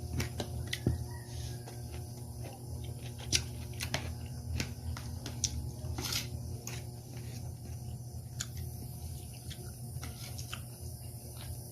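Eating sounds: chewing with soft squelches and scattered small clicks of utensils, over a steady low hum.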